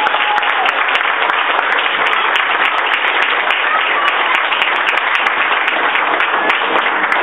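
Theater audience applauding steadily, a dense sustained clapping.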